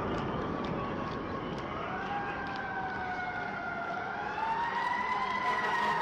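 Emergency vehicle siren wailing, its pitch rising slowly a little under two seconds in and again later before easing down, over steady city traffic noise.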